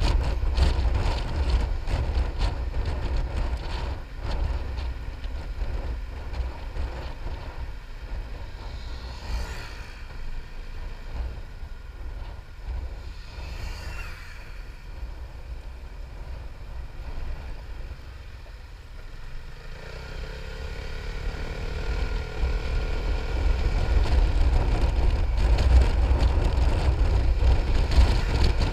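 Piaggio MP3 500 scooter's single-cylinder engine running under way, with heavy wind rumble on the microphone. The sound eases off midway as the scooter slows, then the engine note and wind noise rise again as it accelerates in the last third.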